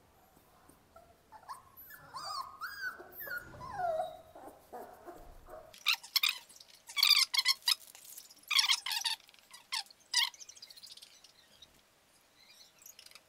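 Young puppies whining and whimpering in short rising and falling cries, followed about six seconds in by a run of louder short scratchy bursts.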